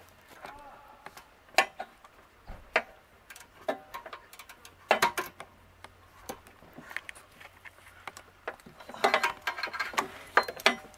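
Scattered small clicks and light knocks of hands working plastic electrical connectors and wiring in a car's engine bay, checking that the rear oxygen sensor plug is seated.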